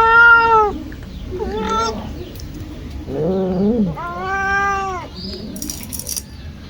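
A domestic cat meowing repeatedly: four drawn-out meows, the first the loudest and one of them lower-pitched.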